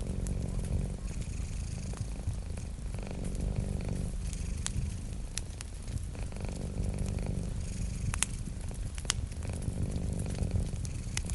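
Cat purring steadily, a low rumble that swells and eases about every two seconds with its breathing, over the scattered sharp pops and crackles of a wood fire.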